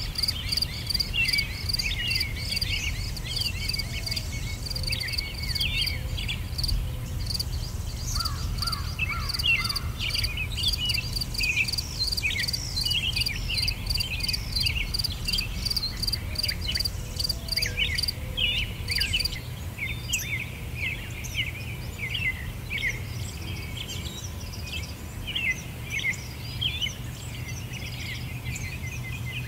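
Nature ambience of crickets chirping in an even pulse and small birds twittering, over a steady low rumble. The cricket pulse stops about two-thirds of the way through while the bird chirps go on.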